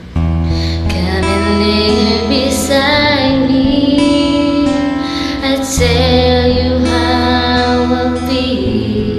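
Music: a slow karaoke song with a female voice singing long held notes over a steady bass line.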